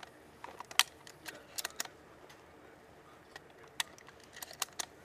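Shells being thumbed into a pump-action shotgun's tube magazine: a scattering of short, sharp metallic clicks, the loudest a little under a second in.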